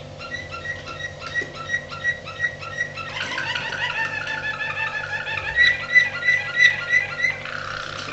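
Domestic canary singing in rapid runs of repeated short notes, growing louder and fuller about three seconds in.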